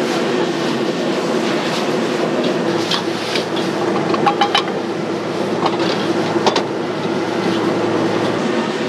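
Gas wok burner running steadily under a steel wok of noodles in bubbling broth. A metal ladle clinks against the wok several times between about three and seven seconds in.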